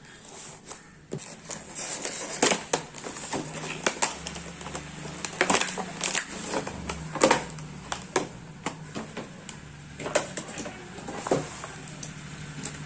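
Packaging being handled and unwrapped: irregular crinkles, clicks and taps of plastic and cardboard around an action camera box.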